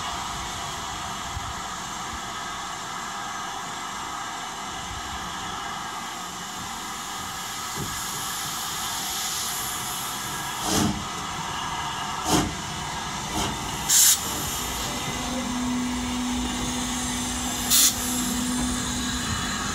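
LMS Stanier Black Five, a two-cylinder 4-6-0 steam locomotive, hissing steadily as it stands in steam. From about eleven seconds in come several sharp, irregularly spaced blasts of steam as it starts to get under way.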